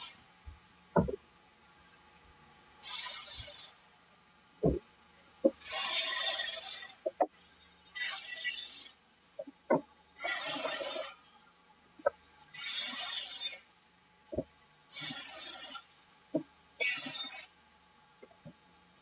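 Sawmill machinery working in a steady cycle: seven short bursts of hissing noise, one about every two seconds, with sharp knocks and clanks between them.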